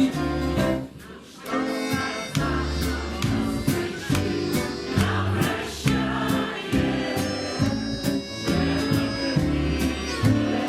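Instrumental backing music between sung verses, with a steady bass beat and held chords. The music briefly drops away about a second in.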